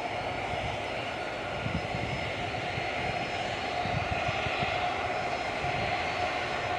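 Jet engines of a FedEx Boeing 767 freighter running steadily at low power as the aircraft rolls along the ground, a constant whine over a rumble.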